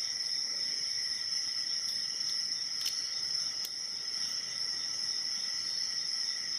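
A steady high-pitched whine, with two faint clicks about three seconds in from the pick working the pins of an Abus 72/40 padlock.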